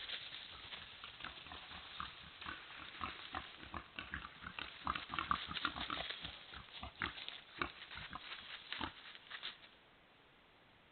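Wild boar moving through dry forest leaf litter: dense, irregular crackling and rustling that stops abruptly about a second before the end.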